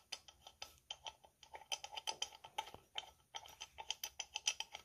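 Light, irregular clicking, several small ticks a second, as the small threaded cap on a tub spout's diverter lift rod is unscrewed by hand.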